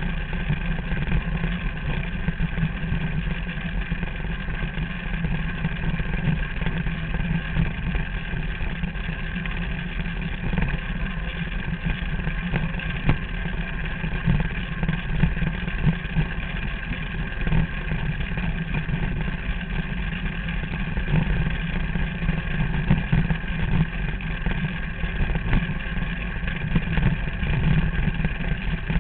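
Derny's small motor running steadily at an even speed, a continuous engine drone that does not change.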